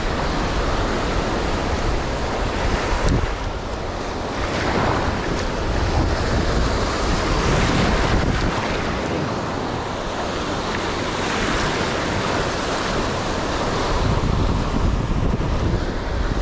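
Surf breaking and washing up a sandy beach, swelling and fading every few seconds, with wind buffeting the microphone.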